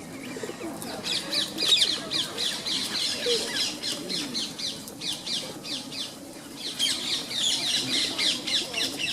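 A flock of rose-ringed (ring-necked) parakeets calling: many rapid, shrill chirps overlapping, with a short lull about halfway through.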